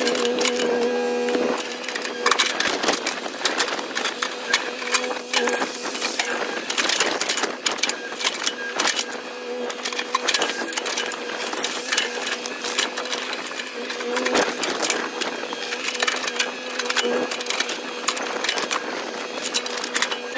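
Mini excavator running while its bucket digs out soil and roots around a tree stump: a steady engine hum, stronger in the first second and a half, under dense crunching and knocking of earth and roots.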